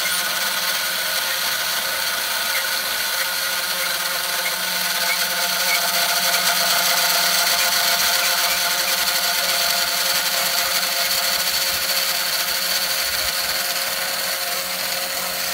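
CNC router spindle running with a steady whine as its V-bit cuts through adhesive shelf tape into a painted wooden board. It carves the letters and border line of a V-carved sign.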